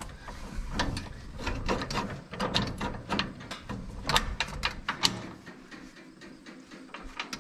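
Metal parts of a corn picker's mounting linkage clinking and clicking irregularly as a pin and bracket are worked by hand. The clicks come thick for about five seconds, then thin out.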